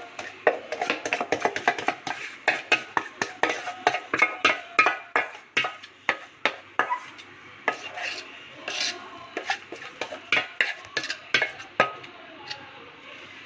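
Dhokla batter being whisked briskly in a bowl just after Eno fruit salt is added: the utensil clicks and scrapes against the bowl about three or four times a second, thinning out near the end.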